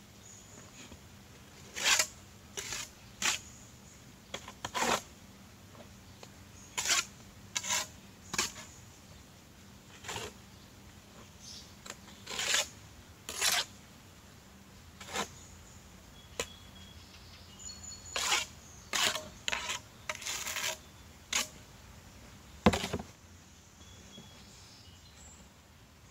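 Irregular scraping strokes of a mason's trowel working mortar against concrete blocks, with one sharp knock near the end.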